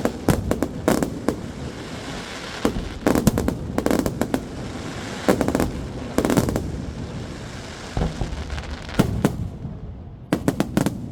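Fireworks display: shells bursting in quick clusters of sharp bangs and crackles every second or so over a continuous background of echo, the bursts thinning out and the background quietening near the end.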